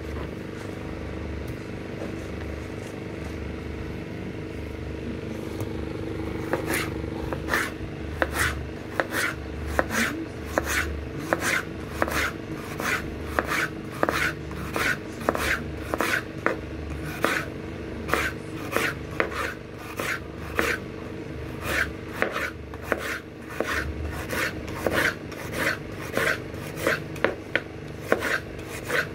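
Kitchen knife slicing a white radish thinly on a bamboo cutting board: a steady run of crisp cuts and taps of the blade on the board, sparse at first and then about two a second from roughly six seconds in.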